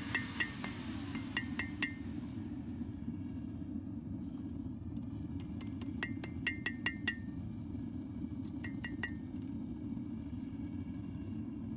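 Hammer blows ringing on hot steel and an anvil, in short quick groups of three to six strikes with pauses between, over the steady low roar of a propane forge burner.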